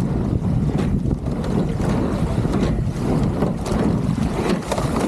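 Wind buffeting the microphone over water rushing along a racing rowing shell, with faint clicks every second or so.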